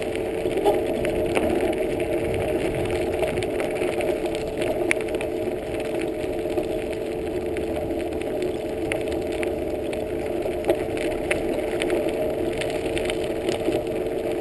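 A bicycle rolling fast over a gravel and leaf trail: a steady tyre hum and rumble, with scattered clicks and rattles from the ground and the bike.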